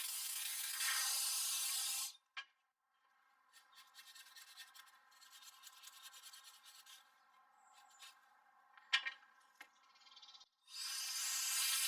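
Compressed air hissing in a steady blast from an air duster, cutting off about two seconds in; then quieter brushing and rubbing over PC parts as the dust is scrubbed off, with a sharp click near the end of that stretch; the air blast starts again near the end.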